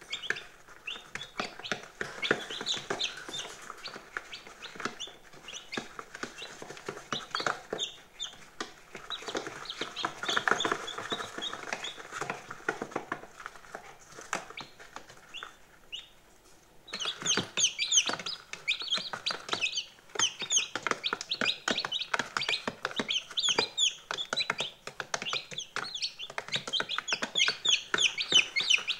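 A brood of day-old chicks peeping: a constant stream of short, high, falling peeps from many birds at once. The peeping gets denser and louder a little over halfway through.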